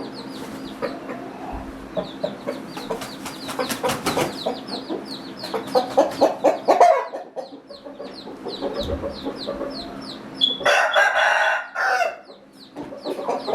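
Chickens clucking, and a rooster crows once about eleven seconds in. Rapid high chirps repeat throughout.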